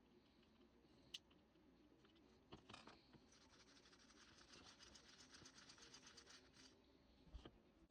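Faint handling sounds of chainsaw parts and hand tools during reassembly. A sharp click comes about a second in and a few light knocks follow. Then comes about three seconds of rapid, even ticking.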